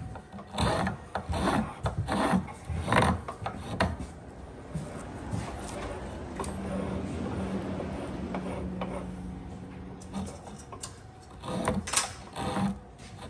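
Spokeshave shaving a wooden mallet handle: short rasping cuts of the blade across the grain, about one a second in two runs. A steady low hum fills the pause between the runs.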